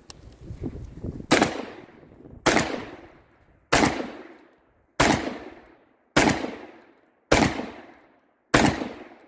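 Revolution Armory R4 12-gauge semi-automatic shotgun, a copy of the Benelli M4, fired seven times at an even pace of about one shot every 1.2 seconds, each report trailing off in echo. The gas-operated action cycles cleanly from shot to shot.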